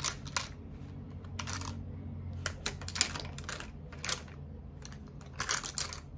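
Makeup palette and brush being handled: a scattering of irregular light clicks and short scratchy taps, with a quick run of them near the end, over a steady low hum.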